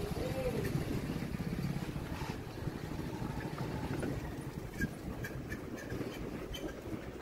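Motor scooter riding along a paved lane: a steady low rumble of the scooter and its tyres on the road, with a few light ticks in the second half.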